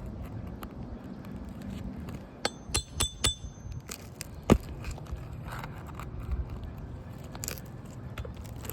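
Hammer striking a steel nail puller to draw a roofing nail from under an asphalt shingle tab: four quick ringing metallic clinks about two and a half seconds in, then a single sharp knock about four and a half seconds in, with lighter taps scattered around them.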